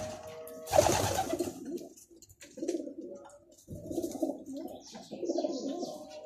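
Domestic racing pigeon cooing in three low, pulsing phrases. About a second in there is a sudden loud rustle, the loudest sound.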